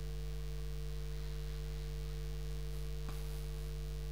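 Steady low electrical hum in the recording, a few constant tones with no change in level, with one faint click about three seconds in.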